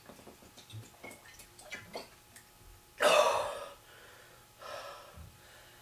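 A man drinking from a bottle: faint swallowing clicks, then a loud breathy gasp after the drink about three seconds in, and a softer breath out about a second and a half later.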